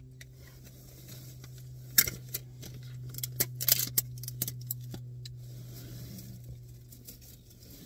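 Packaging being handled: a sharp click about two seconds in, then a scatter of clicks and crinkles from a Tootsie Roll tube bank and its plastic lid, which stop about five seconds in. A steady low hum runs under it in the car cabin.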